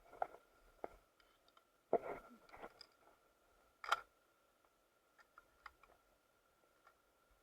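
Scattered clicks and knocks, the loudest a sharp click about four seconds in and a knock about two seconds in, with a few small ticks later, over a faint steady high tone.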